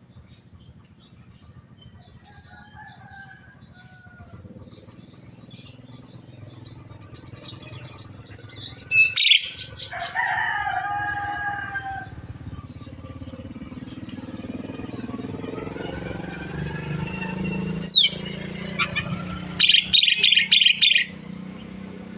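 Javan myna calling: a string of varied whistles and pitched notes, with a loud sharp falling whistle about nine seconds in and again near eighteen seconds, a held call just after the first, and a loud harsh rasping burst near the end.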